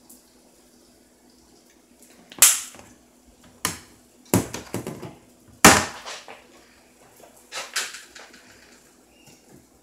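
Kitchen handling noise: a series of sharp knocks and clatters as things are put down and moved, the loudest about five and a half seconds in, with a smaller pair near the end.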